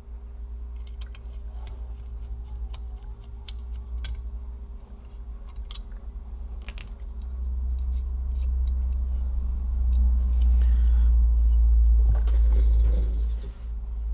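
Handling of a laptop's cooling fan and heatsink during cleaning: scattered light clicks and taps, then a low rumble that swells over several seconds, with a brief scratchy rubbing near the end.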